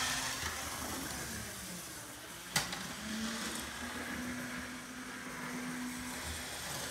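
Athearn HO-scale model locomotive running on the track, its electric motor giving a steady whirring hum with the wheels rolling on the rails. The hum drops out for about a second around a single sharp click about two and a half seconds in, then picks up again.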